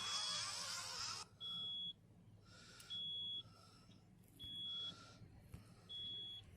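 Repeating electronic warning beep, each about half a second long and sounding about once every second and a half, after a short burst of rasping noise in the first second.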